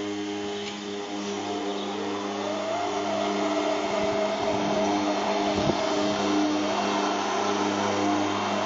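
Robomow RL500 robotic lawnmower running on grass: a steady electric motor hum with a wavering whine, growing louder over the first few seconds.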